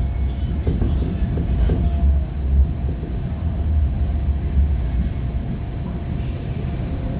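A first-generation (Phase I) MTR light rail car runs on its track with a heavy low rumble and a thin steady whine, with a few rattles or clicks in the first two seconds.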